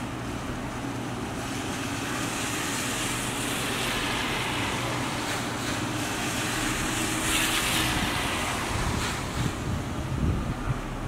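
Steady rain falling, a continuous hiss that swells louder through the middle, with some low rumbling near the end.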